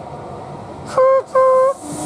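Horn of an approaching E464 electric locomotive sounding two short blasts at one steady pitch, starting about a second in.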